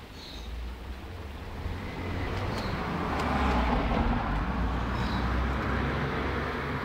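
A road vehicle driving past, its rumbling rush of noise swelling to its loudest about halfway through and then fading.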